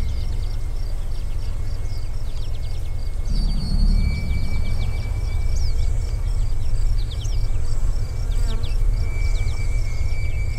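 Insects buzzing and chirping: a regular high chirping and a thin steady whine over a low rumble, with a few short falling high chirps midway.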